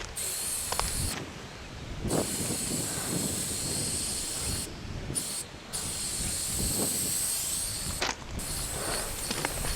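Aerosol spray paint can hissing in long bursts, the spray cutting off briefly four times between them, over a low rumble.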